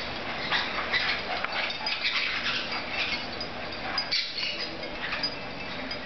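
A group of small green parakeets calling, many short high calls overlapping in an irregular chatter.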